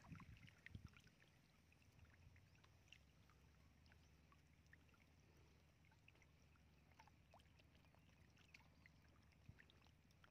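Near silence with faint wet splashing and slapping of fish wriggling in a shallow muddy puddle, a little louder in the first second.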